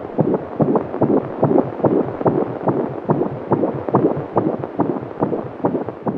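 Fetal heartbeat at 35 weeks picked up by a BabyBeat fetal Doppler: a rapid, regular pulsing beat.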